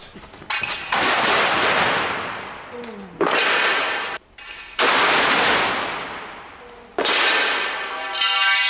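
Giant balloons bursting: four sharp bangs about two seconds apart, each trailing off in a long reverberant wash, with a smaller crack just before the first.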